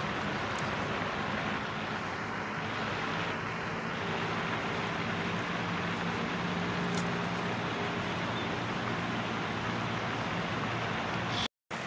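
Steady noise of road traffic from a nearby road, with a low hum running under it; it cuts off suddenly near the end.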